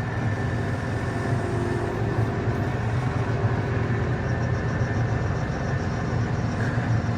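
Engine of a farm machine running steadily at idle, a constant low hum with no change in speed.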